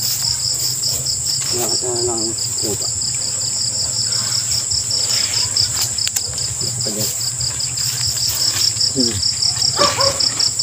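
Night insects, crickets, chirping in rapid, evenly pulsed trills over a steady high-pitched buzz, with a low steady hum underneath and a few faint voices.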